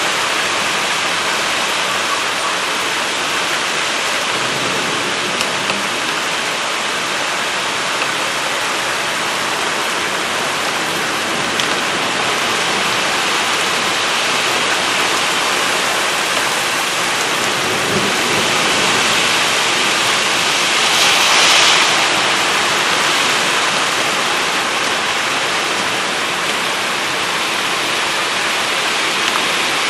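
Heavy rain pouring down, a steady dense hiss that swells louder briefly about two-thirds of the way through.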